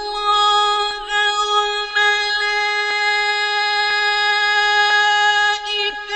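A male Quran reciter in the Egyptian mujawwad style holding one long melodic vowel at a steady pitch, with a slight step in pitch about a second in and a wavering ornament near the end.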